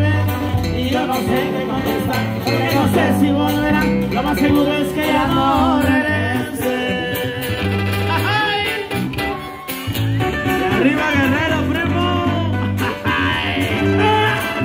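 Live band playing a Mexican regional song: a man sings over strummed guitar, electric bass and tuba.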